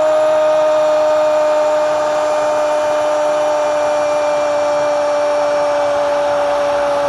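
A Spanish-language football commentator's long goal cry, one steady unbroken 'gooool' held on a single pitch, over the noise of a stadium crowd.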